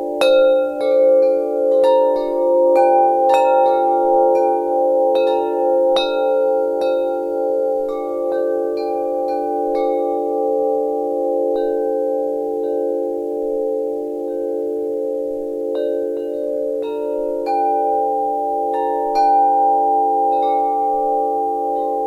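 Wind chimes ringing: irregular strikes set off several overlapping low tones that hang on and blend together. The strikes come thick in the first several seconds, thin out in the middle, and pick up again a few seconds before the end.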